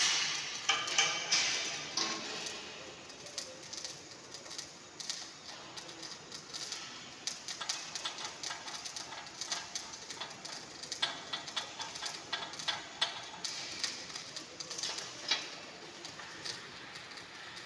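MIG welding arc crackling: a rapid, uneven stream of short sharp pops, busiest in the first two seconds and then more spaced out.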